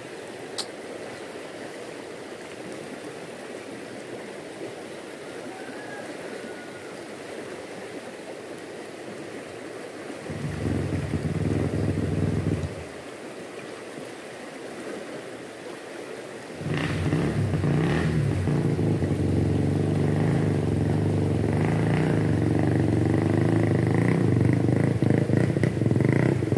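Fast-flowing stream rushing steadily. A loud low rumble cuts in briefly about ten seconds in, and again about two-thirds of the way through, lasting to the end.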